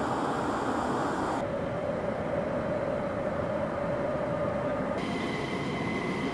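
F-22 Raptor jet turbine noise on the ground during startup: a steady rushing roar with a whine over it. The sound changes abruptly twice, first to a steady mid-pitched whine and then, near the end, to a higher one.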